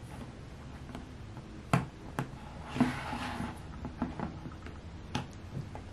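Ring-pull tab on a metal sardine tin being lifted and worked by fingers: several sharp metallic clicks, with a short rasp about three seconds in.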